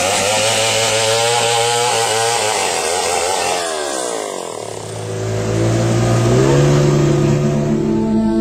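A small engine revving hard under load, its pitch wavering, then falling away about four seconds in before it settles to a steady run that picks up slightly near the end.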